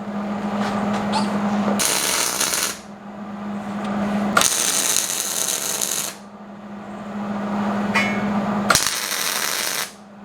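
Electric welding arc tacking steel tubing legs to a steel plate: a steady buzzing crackle laid down in several short welds, each a few seconds long, with brief pauses between them.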